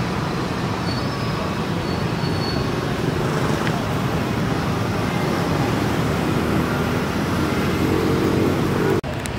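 Steady rushing background noise that breaks off for an instant near the end.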